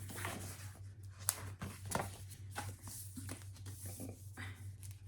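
Paper dust jacket rustling and sliding as it is fitted back onto a hardcover book, with small taps and a couple of sharp clicks between one and two seconds in.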